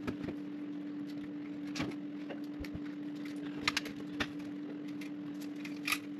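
Small sharp clicks and taps of a screwdriver working the terminals of a thermostat wall box to free the old wires: a few scattered clicks, two close together about four seconds in, over a steady low hum.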